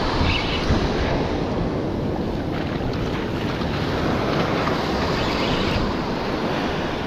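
Small surf waves washing up the beach, with strong wind rumble on the microphone.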